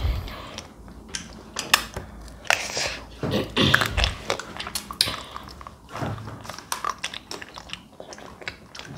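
Children eating chocolate-coated Magnum ice cream bars: irregular wet mouth sounds of licking, biting and chewing, with sharp little clicks and smacks scattered unevenly throughout.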